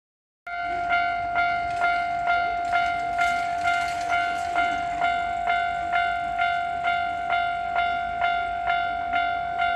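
Electronic warning bell of a Japanese railway level crossing ringing. It starts about half a second in and strikes evenly a little over twice a second over a steady ringing tone, the signal that a train is approaching and the crossing is closing.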